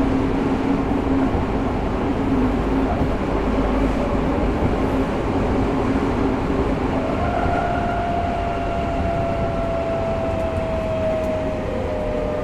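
Tokyo Metro 05 series subway train with a Mitsubishi IGBT inverter drive, running with a steady rumble of wheels and motors. About seven seconds in, a high inverter whine sets in and slowly falls in pitch, typical of the train braking as it slows for the next station.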